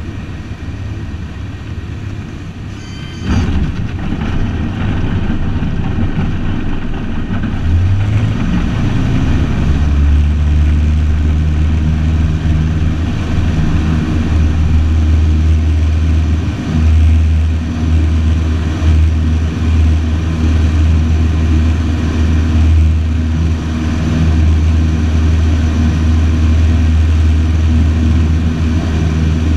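Light single-engine trainer aircraft's piston engine and propeller heard inside the cockpit during a touch-and-go. The level jumps suddenly a few seconds in, and the engine note rises to takeoff power at about eight seconds. It then runs steadily at high power through the takeoff roll and climb-out.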